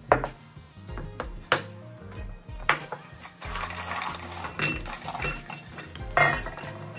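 Kitchen dishes and utensils clinking and knocking together, with several sharp knocks scattered through, the loudest about six seconds in.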